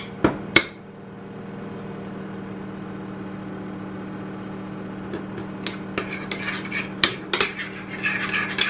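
Metal spoon stirring a thick mayonnaise-and-miso sauce in a small glass container, clicking and scraping against the glass near the start and again through the second half. A steady low hum runs underneath.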